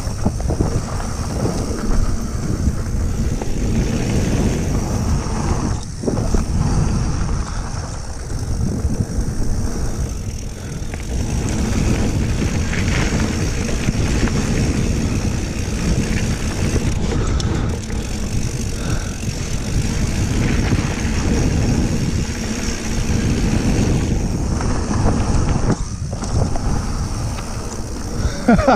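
Mountain bike descending a dirt flow trail, filmed from a GoPro on the rider: a continuous rush of wind over the microphone mixed with tyre roar and rumble from the trail surface.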